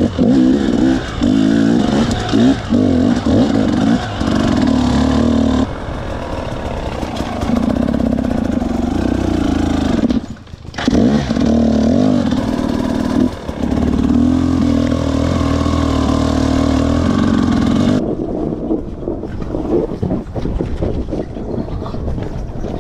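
Husqvarna TE300 single-cylinder two-stroke enduro engine revving up and down under the throttle while the bike is ridden over rough trail. The throttle is chopped briefly about ten seconds in, and the engine runs softer near the end.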